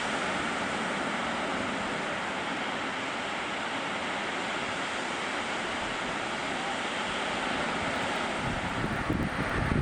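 Ocean surf washing on the beach as a steady rush, with wind buffeting the microphone in gusts near the end.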